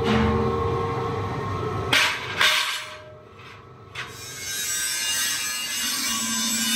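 Workshop machinery running with a steady hum, broken by sharp metal clanks about two seconds in and a lighter clank about four seconds in, where a steel wheel disc is set down on a stack of discs.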